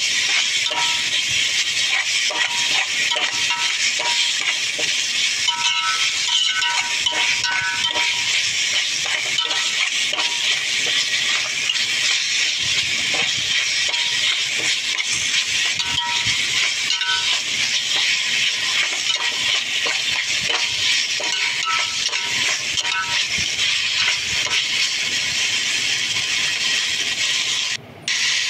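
Metal spatula scraping and clinking against a steel wok as noodles are tossed and stir-fried, with short ringing clinks in irregular clusters over a steady sizzling hiss.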